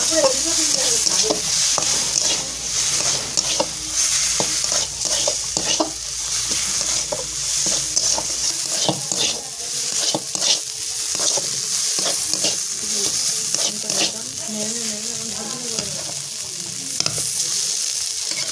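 Metal spatula stirring and scraping flaked lote fish around a metal kadai, with short scrapes and taps on the pan over a steady sizzle of frying. The mix is being stir-fried dry and crumbly.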